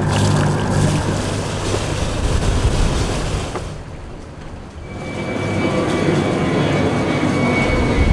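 Sailing catamaran under engine: a steady low engine hum with water rushing along the hull and wind on the microphone. The sound drops away briefly about four seconds in, then returns as water and wind noise with a faint steady high whine.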